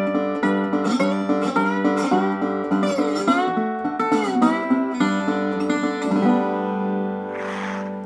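Metal-body resonator guitar played with a slide, picking out a slow melody around the 12th fret over a steady low note. The slide glides between pitches about halfway through, and the last note is left ringing and fades.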